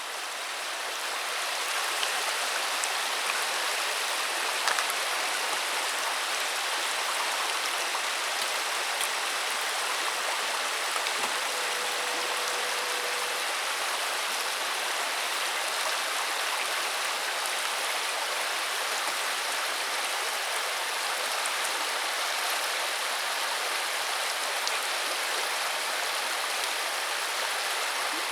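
Steady, even wash of water noise, a continuous hiss with no break and a few tiny ticks in it.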